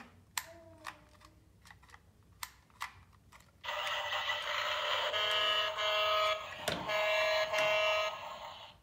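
Small battery-operated toy bus playing an electronic horn-like honking sound from its little speaker: it starts a little over a third of the way in, breaks off and resumes a few times, and stops shortly before the end. Before it, a few light clicks of the toy being handled.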